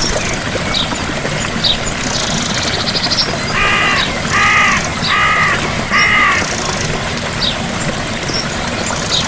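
Steady rush of a gentle waterfall. Midway a bird gives four loud calls about three-quarters of a second apart, while smaller birds trill and chirp high above the water.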